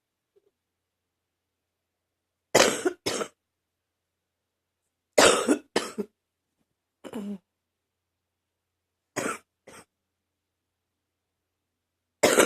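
Repeated coughing: five bouts, most of them two quick coughs, coming every two to three seconds with silence between; the bout about seven seconds in is a single, quieter cough.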